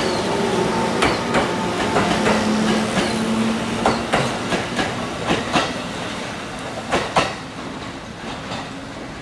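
JR 415 series electric train pulling out, its wheels clacking over the rail joints over a steady motor hum. The sound fades as the train draws away.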